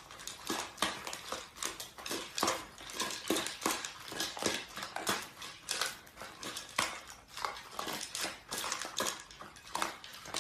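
A rapid, irregular run of small clicks and clatters, several a second, in a small room.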